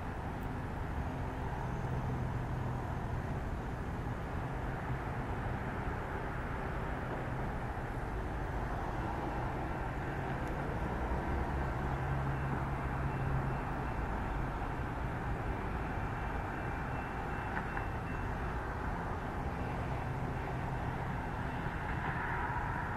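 EMD F40PH diesel-electric locomotive approaching at the head of a commuter train, its two-stroke V16 diesel a steady low drone over rail noise, growing somewhat louder near the end.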